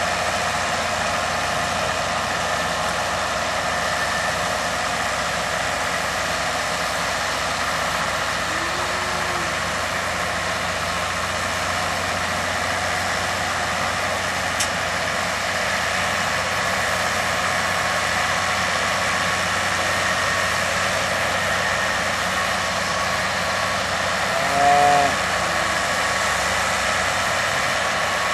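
Tractor engine running steadily, driving a straw bale shredder that blows chopped straw out in a constant rush. About three seconds before the end a short rising-and-falling call, the loudest moment, rises above the machine.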